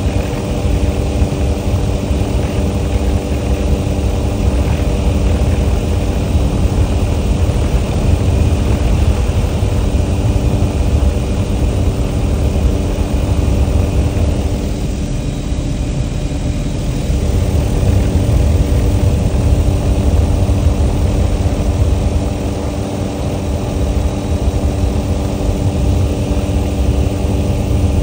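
Helicopter in flight, heard from inside the cabin: the engine and rotor make a loud, steady drone with a stack of even tones over a deep rumble, easing slightly a couple of times.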